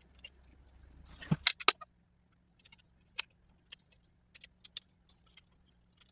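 Small plastic and metal parts of an Akedo Powerstorm toy controller clicking and tapping as it is handled and pieced back together by hand. A few loud clicks come about a second and a half in, followed by scattered lighter ticks.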